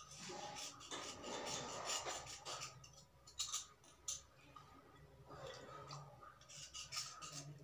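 Steel kitchen knife blade scraping along a wet slate pencil in repeated strokes, with a short pause a little past the middle broken by two sharp clicks.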